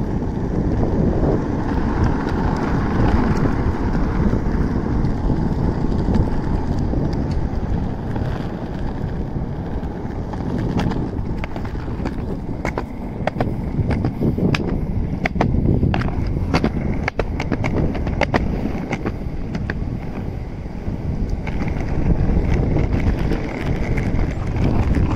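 Skateboard wheels rolling over an asphalt path: a steady, loud rumble, with a run of sharp clicks in the middle.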